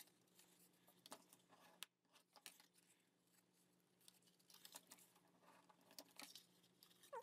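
Near silence, with faint scattered rustles and crackles of heavy cardstock being folded along its score lines and creased with a bone folder.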